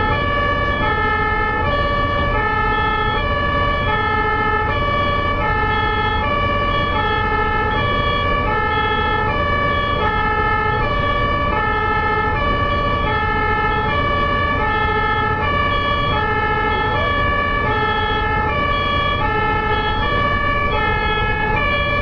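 German ambulance two-tone siren (Martinshorn) sounding continuously, swapping steadily between a lower and a higher note under a second apart, over a steady low rumble.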